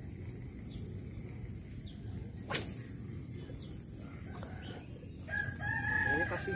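A rooster crowing about five seconds in: one long call held at a steady pitch, dipping at its end. A single sharp click sounds a little before the middle, over a faint steady high-pitched hum.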